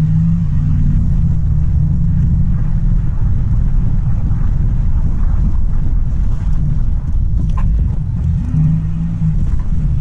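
A car driving on a wet road, heard from inside the cabin: a steady low rumble of engine and tyres.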